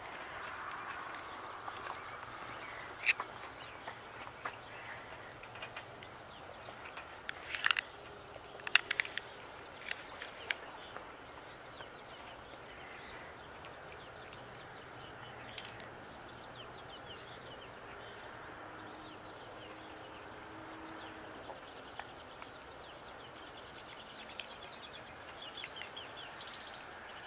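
Quiet outdoor ambience with small birds chirping now and then. A few sharp clicks and taps fall in the first ten seconds.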